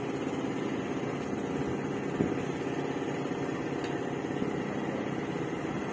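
Motorboat engine running steadily at low speed, with a single brief knock about two seconds in.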